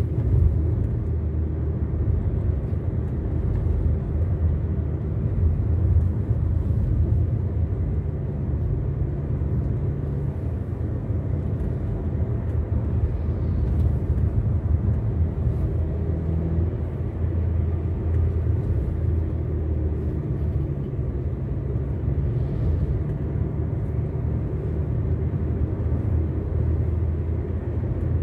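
Car engine and tyre noise heard from inside the cabin while driving: a steady low rumble with a faint engine hum.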